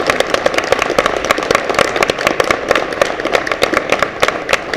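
Audience applauding, a dense run of hand claps with some sharp ones close by.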